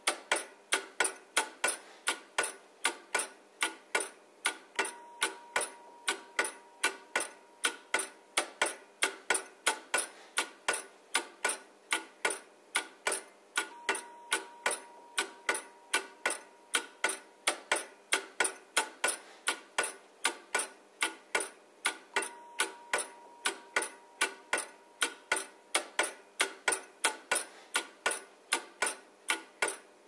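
Clockwork movement of a c. 1650 Augsburg automaton table clock by Halaicher, ticking steadily at about three sharp, even ticks a second.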